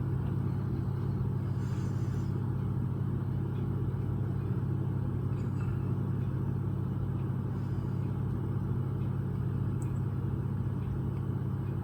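Steady low rumble that holds at an even level throughout.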